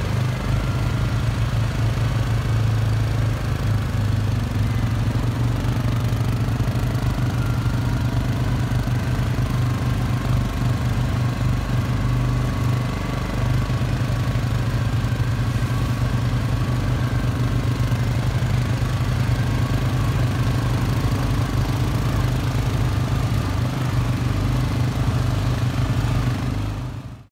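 Suzuki KingQuad 750 ATV's single-cylinder engine running steadily at riding speed, a constant low engine hum with a faint whine above it. The sound cuts off abruptly near the end.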